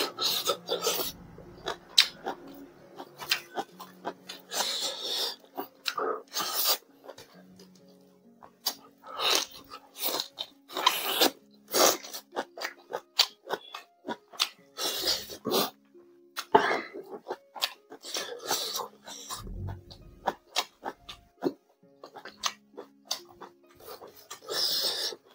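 Close-miked mouth sounds of a person eating spicy pork and rice by hand: irregular wet chewing and smacking, with sharp hissing breaths between bites.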